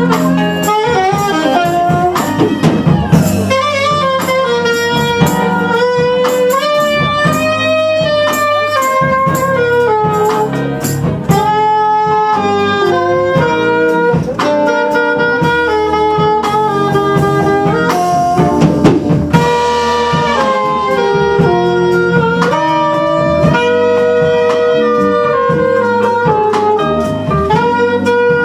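Two saxophones playing a jazzy melody together in held and stepping notes, over a live band with bass guitar and drums.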